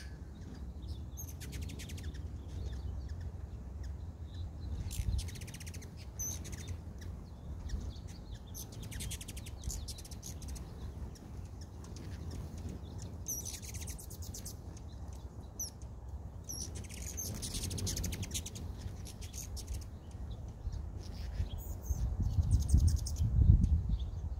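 Hummingbirds at the feeders giving short bursts of rapid, buzzy chip chatter, about eight times, with a few thin high chips between. Under them a low rumble, louder near the end.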